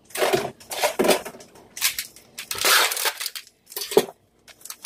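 Plastic bag of frozen mixed vegetables crinkling as it is handled, in about five short bursts.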